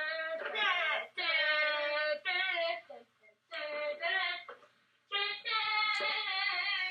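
A child's voice singing in high, drawn-out notes, in several phrases with short breaks about three and five seconds in, heard through a TV speaker re-recorded from an old home-video tape.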